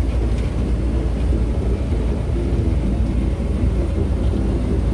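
Steady low rumble of a moving train ride.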